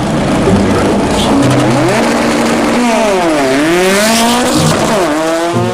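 Race car sound effect: an engine revving over a loud noisy wash with tyre squeal, its pitch dipping about three seconds in and climbing again near the end.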